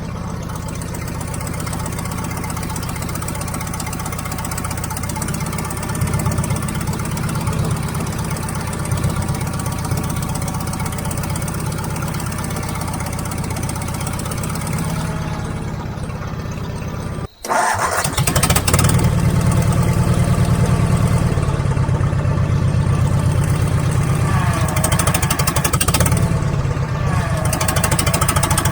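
A heavy machine's engine running steadily at a low pitch. About seventeen seconds in it cuts out for a moment, then comes back louder.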